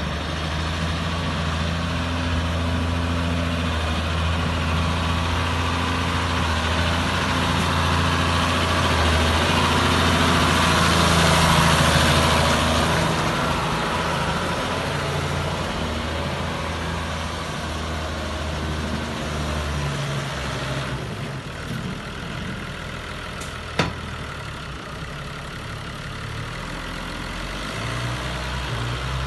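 New Holland TM155 tractor's diesel engine running as the tractor drives across the yard, at its loudest about a third of the way in, then easing off. A single sharp knock sounds about four fifths of the way through.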